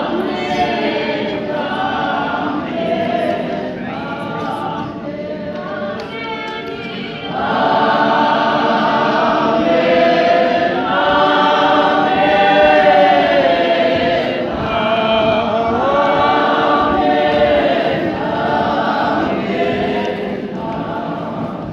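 A group of voices singing together without instruments, like a funeral hymn sung by a choir, growing louder about seven seconds in.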